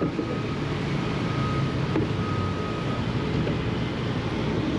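Diesel engine of heavy construction equipment running steadily.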